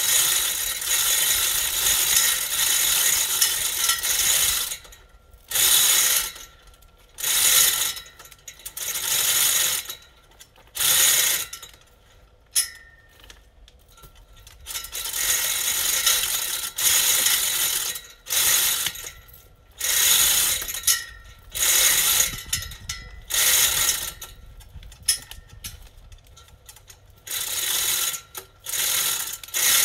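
Manual chain hoist being hauled by its hand chain, ratcheting and rattling as it winches a hydrangea stump out of the ground. It runs steadily for the first few seconds, then in separate pulls of about a second with short pauses between.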